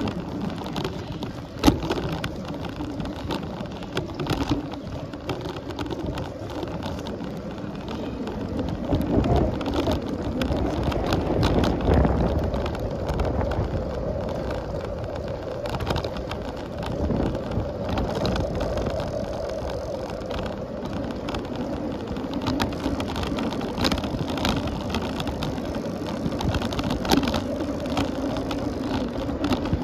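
Sound of a bicycle being ridden: a steady noisy rush of tyres and air, with frequent light clicks and rattles from the bike and a sharp click about two seconds in.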